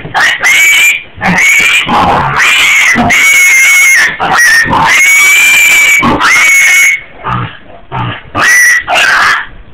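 Pig squealing loudly in a rapid string of about ten high-pitched screams, each held for half a second to a second, with a short lull about seven seconds in before two more squeals. These are the distress squeals of a pig held down to have an ear tag put in.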